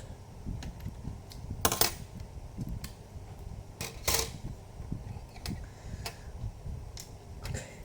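Laptop being handled and reassembled: scattered sharp plastic clicks over low handling rumble, with two louder short clatters about two and four seconds in.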